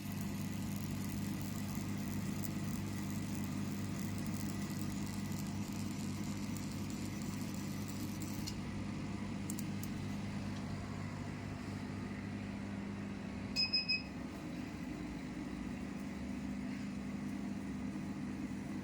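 Steady electrical hum of a running fractional CO2 laser machine, with three quick high beeps about fourteen seconds in.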